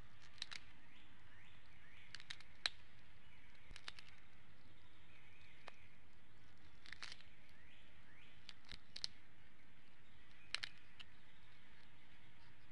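Steady outdoor hiss with faint bird chirps and a scattering of short, sharp ticks, the loudest about two and a half seconds in.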